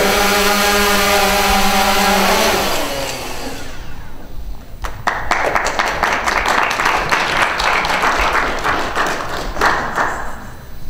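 DJI Phantom 2 Vision quadcopter's four propellers buzzing steadily, then winding down and falling silent about two to three seconds in. From about five seconds, an audience applauds.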